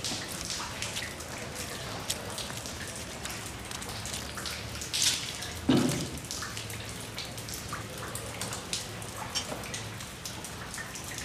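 Steady rain with water dripping onto a flooded floor, many irregular drops over a constant hiss, and one louder thump a little past the middle.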